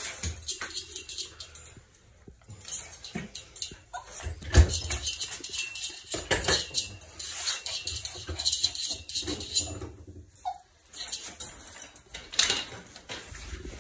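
Small curly-coated dog moving about inside a metal pet playpen: an irregular run of scratches, rustles and light clinks.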